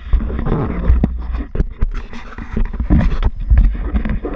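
Handling noise on a handheld camera's microphone as it is carried through brush: irregular rubbing, scraping and knocking over a rough low rumble, with leaves and stems brushing past.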